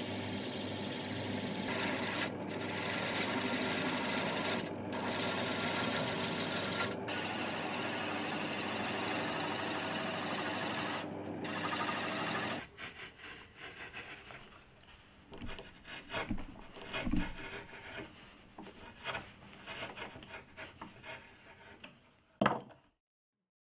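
Wood lathe running with a low hum while a turning chisel cuts a spinning wooden blank, a steady dense hiss of shaving. About halfway through this stops abruptly and gives way to quieter, irregular scraping strokes of a hand tool carving wood, with one louder stroke near the end.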